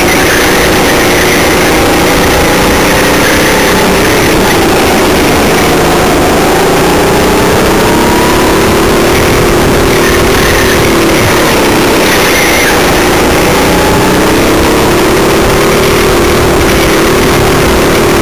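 Go-kart engine heard from onboard, loud and unbroken, its pitch rising and falling as the kart speeds up and slows through a string of tight corners.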